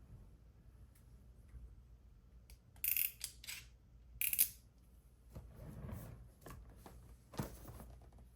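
Packaging being handled during a keyboard unboxing: scattered light clicks and taps, with two short, sharp bursts of rustling or scraping about three and four seconds in, then softer rubbing.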